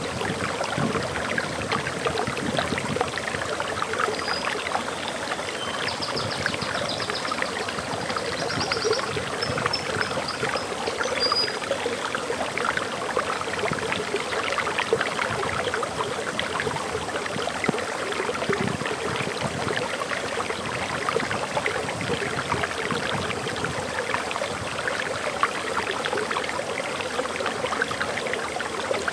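Water flowing over a waterfall, a steady even rush, with a few faint high bird chirps between about four and eleven seconds in.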